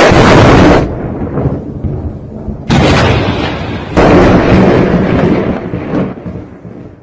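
Hard-starting motorcycle engine running and being revved loudly in two surges, a weaker stretch between them, then falling away near the end. The owner puts the hard starting down to weak spark.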